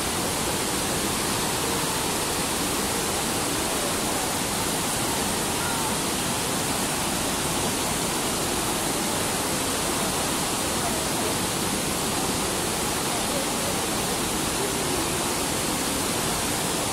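Steady rush of a river's whitewater rapids pouring over and around rocks.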